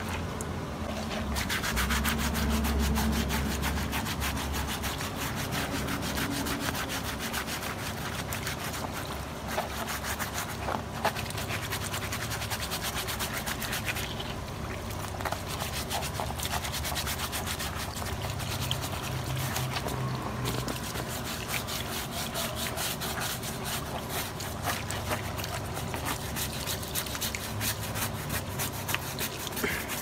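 Water from a garden hose running and splashing onto a plastic air-conditioner filter and wet concrete, with a sponge scrubbing the filter's mesh.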